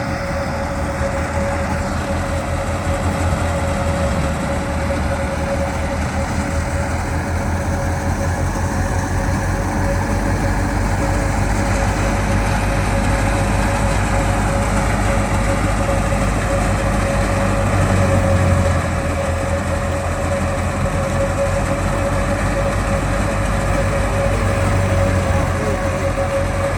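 Harvesting machine's engine running steadily under load: a continuous low drone with a steady high whine over it.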